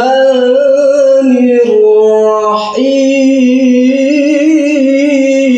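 A man's voice chanting Quranic recitation in a slow melodic style, holding long wavering notes with a short breath about two and a half seconds in.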